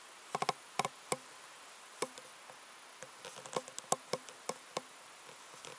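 A run of irregular sharp clicks and taps, about fifteen over four and a half seconds, some in quick pairs, over a faint steady hiss.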